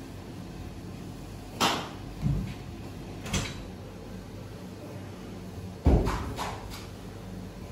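A flat square metal plate knocking against the worktable as it is set down and pushed against rolled baklava pastry: a few dull knocks, the loudest about six seconds in, over a steady kitchen hum.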